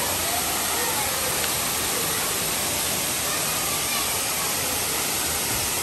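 Steady, even rushing of a tall waterfall pouring into a rock pool.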